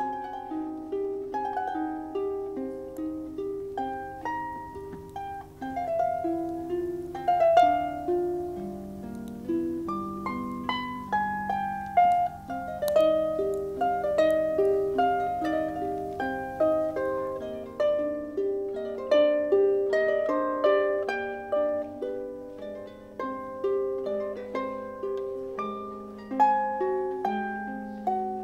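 Concert harp played solo: a flowing melody of plucked notes over lower notes, each string ringing on and dying away.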